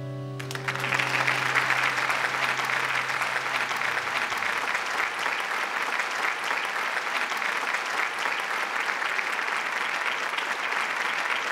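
Audience applauding at the end of a song, with the band's last low note ringing on beneath the clapping for the first few seconds before it fades out.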